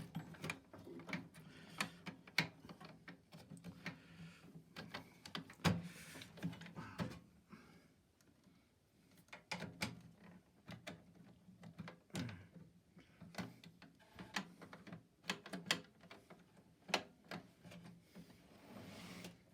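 Scattered clicks, taps and scrapes of tools and hands working at a stuck plastic-and-metal microwave control panel, trying to unscrew and prise it loose. There is a brief quieter pause about eight seconds in.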